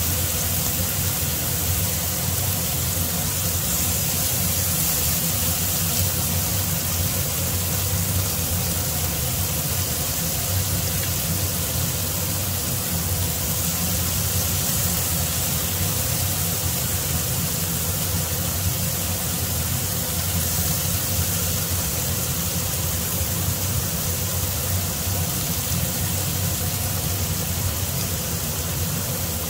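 Marinated beef strips sizzling steadily in butter and sauce in a nonstick frying pan, an even hiss with a low steady hum underneath.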